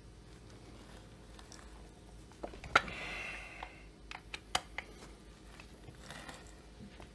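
Hand tools and metal parts being handled while tightening the crankcase screws of a chainsaw kit by hand: scattered small clicks and taps, with a short rasp about three seconds in and a quick run of clicks soon after.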